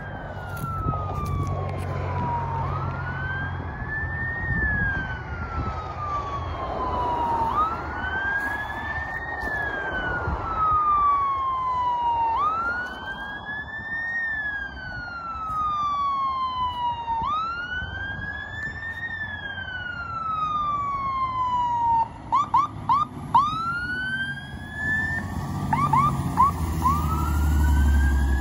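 Fire engine siren wailing, sweeping up and down about every five seconds, switching briefly to a run of quick short sweeps near the end, then back to the wail. The truck's engine rumble grows as it draws close at the end.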